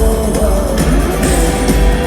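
Rock band playing live, with a sung voice gliding over held notes and a heavy, steady bass.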